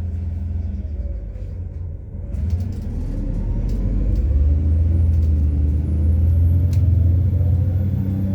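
MAZ-103 city bus running on methane, its engine rumble dipping briefly and then rising in pitch and loudness as the bus accelerates, heard from the passenger cabin. A few sharp clicks sound around the middle.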